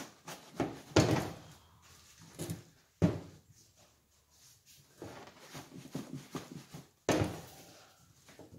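The back of a 1977 MGB seat being handled as its upholstery cover is worked off by hand. There are sharp knocks about one, three and seven seconds in, with rubbing and rustling of the cover between them.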